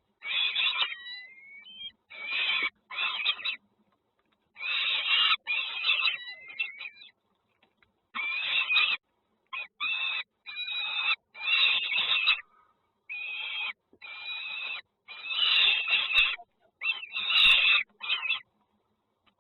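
Nestling birds calling harshly in repeated bursts, typical of chicks begging for food, with a few rising whistled notes over them. The bursts stop and start abruptly.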